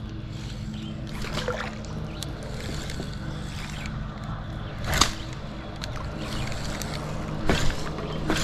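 Kayak on the water: water moving against the hull with scattered small knocks of gear, and one sharp knock about five seconds in, over a steady low hum.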